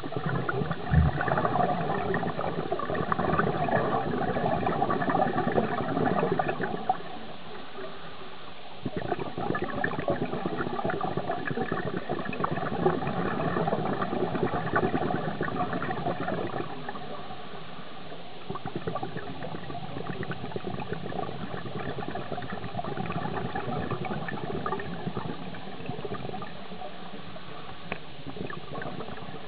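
Scuba exhaust bubbles crackling and gurgling out of a diver's regulator, heard underwater. They come in long stretches of bubbling with short lulls between them, in time with the diver's breaths, and are fainter in the later part.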